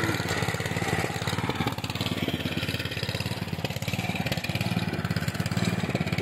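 Small single-cylinder engine of a mini tiller idling steadily while it warms up, with a rapid, even firing beat.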